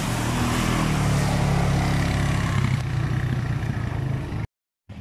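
ATV engine running hard as the quad splashes through a muddy water crossing, spray hissing over the engine drone. The sound cuts out completely for a moment near the end.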